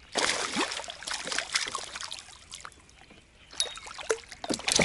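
A hooked pike splashing and thrashing at the water's surface as it is drawn in to the angler, with a burst of splashing at the start and another cluster near the end.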